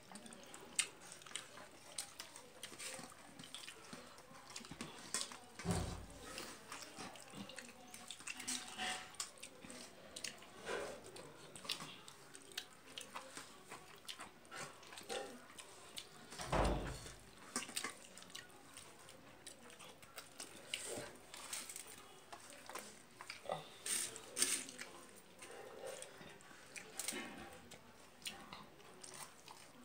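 Wet chewing and mouth sounds of someone eating rice and fish by hand, with fingers working the rice on a steel plate: many small irregular clicks and smacks, and two dull low thumps, about six and seventeen seconds in.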